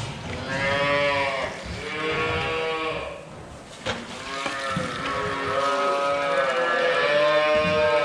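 Holstein calves bawling, about five long calls one after another, each rising and then falling in pitch. A single sharp knock about four seconds in.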